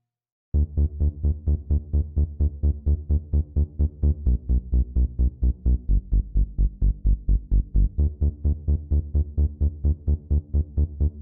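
Electronic dance music with a fast, even pulsing beat, heavy in the bass, about five pulses a second. It starts suddenly about half a second in after a brief silence.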